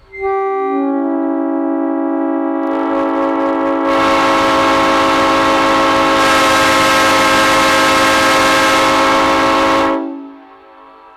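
A multi-tone air horn sounds one long chord of about ten seconds, its notes coming in one after another within the first second. A loud hiss joins from about three seconds in, and everything stops together at the end of the blast.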